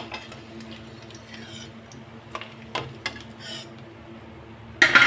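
Steel kitchen utensils clinking and knocking against a steel bowl and pan in short scattered clicks, with one louder clatter near the end, over a low steady hum.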